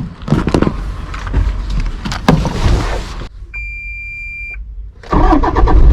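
Knocks and rustling, then a single steady electronic beep lasting about a second. About five seconds in, a car starts driving, with loud steady road and engine noise.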